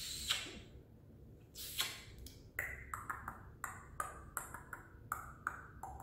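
A woman kissing a pet cockatiel: two longer breathy kisses, then a rapid run of short, sharp kissing smacks, about three a second.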